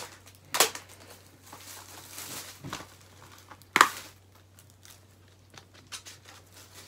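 Plastic shrink-wrap crinkling and rustling as a Blu-ray case is unwrapped and handled, with two sharp clicks, about half a second in and, louder, near four seconds in.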